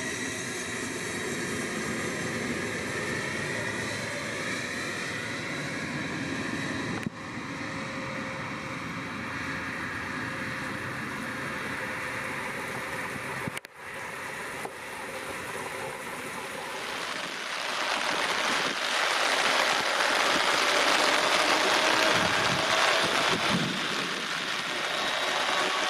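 Boeing 787-8 jet engines whining at takeoff power on a rain-soaked runway, mixed with a steady hiss of rain and spray. The sound breaks off briefly twice, then a louder rushing noise builds after the middle.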